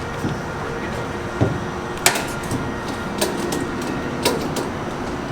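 Several short, sharp knocks and clunks, the loudest about two seconds in, over a steady mechanical hum.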